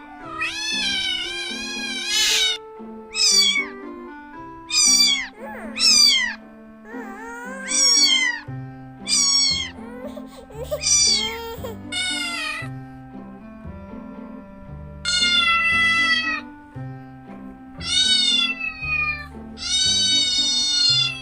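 Domestic cats meowing, about a dozen separate high-pitched meows, some short and some long and drawn out, over soft background music.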